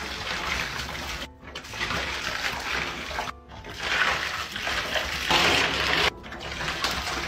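Iced coffee pouring from a bottle onto ice cubes in a bathtub, splashing and trickling, in several short stretches cut apart by brief silences.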